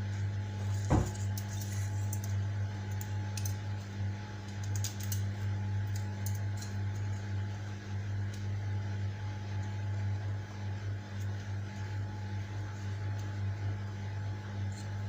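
Light clicks and taps of kitchen items being handled, with one sharp knock about a second in, over a steady low electrical hum.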